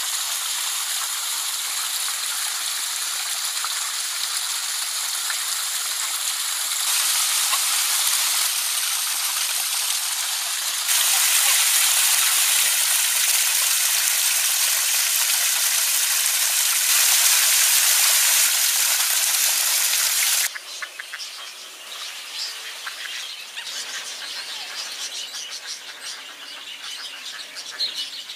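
Steady hiss of splashing, running water that steps up in level a few times, then about two-thirds of the way through it cuts off to a quieter background with birds chirping.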